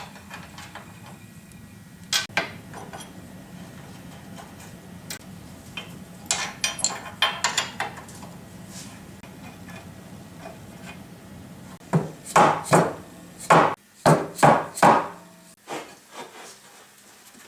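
Hammer blows and tool clanks on a planer's front cross brace as it is knocked loose. A couple of strikes come about two seconds in, a clattering run follows a few seconds later, and a run of about seven loud blows comes near the end, over a steady low hum.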